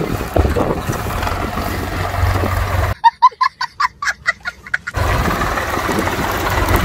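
Tractor diesel engine running. About three seconds in, it cuts out for two seconds while an edited-in clip of rapid, clucking calls like a hen's plays, about six to eight short calls a second. The engine sound then resumes.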